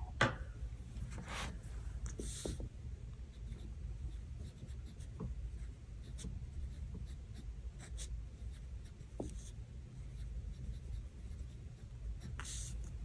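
Pen writing on a planner page, with faint scratches and scattered small ticks of paper and stickers being handled, over a steady low hum.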